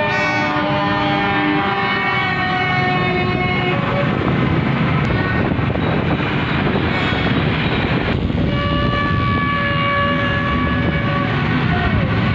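Horns blaring in long held blasts over a steady din of street traffic and crowd noise. One stretch of overlapping horn tones fades after about four seconds, and a second starts about eight seconds in.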